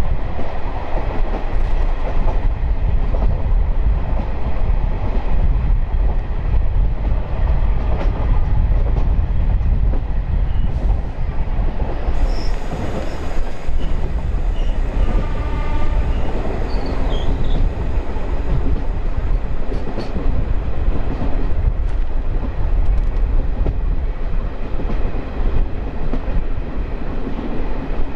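DEMU train running along the track, heard on board: a steady loud rumble with occasional wheel clicks over the rails. A higher-pitched tone is heard briefly about halfway through.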